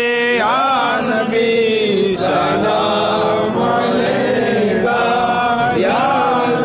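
A solo voice singing a devotional Urdu song, drawing out wordless ornamented notes that glide and bend in pitch, with a long held note toward the end.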